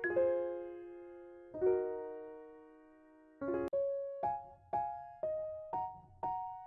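Background music on a keyboard with a piano-like sound. Two sustained chords ring and fade, then single notes follow at about two a second.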